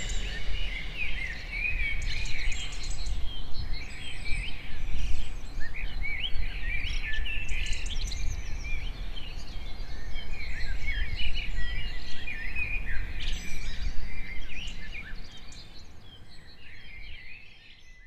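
A chorus of many small birds chirping and singing at once, short quick overlapping calls, over a low steady rumble; it fades out near the end.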